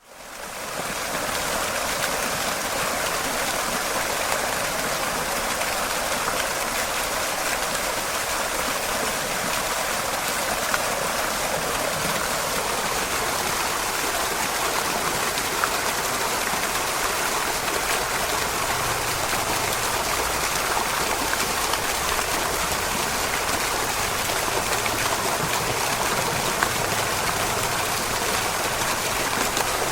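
Fountain water splashing noisily into a shallow basin, heard close up: a steady, hissing splash with little gurgle. It fades in over the first second.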